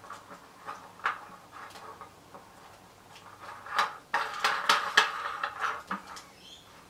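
Lampshade being fitted onto a table lamp by hand: scattered light clicks and knocks, then a busier stretch of clicking and scraping from about four seconds in as the shade is settled on its fitting.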